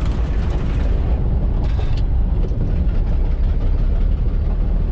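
A 1970 Ford F-350 crew cab's 300 cubic-inch straight-six running steadily as the truck drives, heard from inside the cab as a steady low drone.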